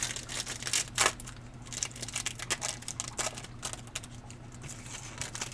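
Foil trading-card pack being opened and its cards handled: crinkling wrapper and quick clicks and rustles of card stock, the sharpest snap about a second in.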